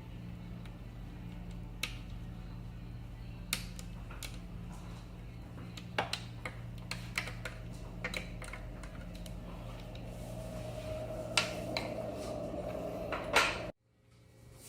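Scattered sharp metallic clicks and clinks of tools and axle hardware being handled while an electric scooter's wheel is taken off its axle, over a steady low hum. The sound cuts out abruptly near the end.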